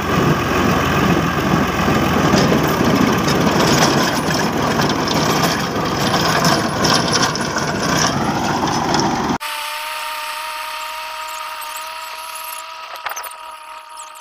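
Al-Ghazi tractor working a rotary tiller close up: engine under load and tines churning soil, with a steady high whine running through it. About nine seconds in the sound cuts to a quieter, more distant steady whine.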